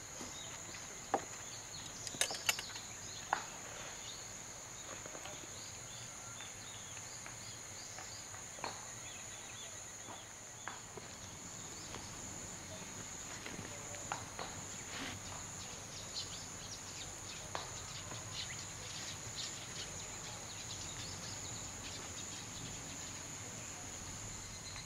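A steady, high-pitched chorus of insects such as crickets, with scattered small clicks and knocks from chopsticks, a bowl and other items being handled.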